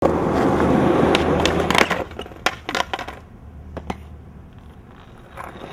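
Skateboard wheels rolling loudly over a rough concrete bowl floor, then several sharp clacks and knocks as the board hits the ground and tumbles away from the skater in a bail.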